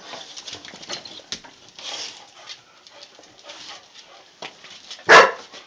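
Clumber spaniels play-fighting on a tile floor: scuffling, mouthing and clicking claws, with one short, loud bark about five seconds in.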